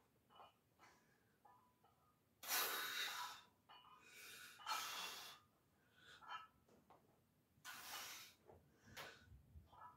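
A man breathing hard through a high-rep set of barbell bench presses: three strong, hissing exhales a couple of seconds apart, with fainter breaths between them.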